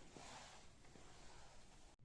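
Near silence: faint room tone with a couple of soft, small clicks.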